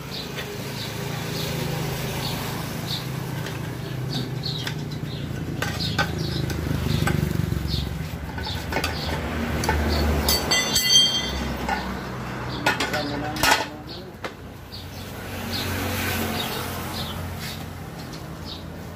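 Metal hand tools clinking and clanking. One piece of metal rings briefly about halfway through, and again a few seconds later, over a low steady hum.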